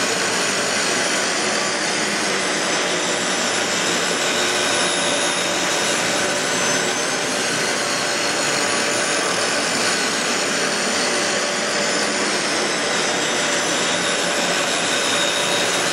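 Dyson DC15 Ball upright vacuum cleaner running steadily: a constant rush of air with a few faint steady tones above it.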